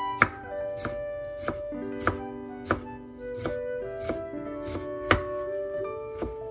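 Kitchen knife mincing boiled lotus root on a wooden cutting board: about ten sharp, uneven knocks of the blade striking the board, over background music.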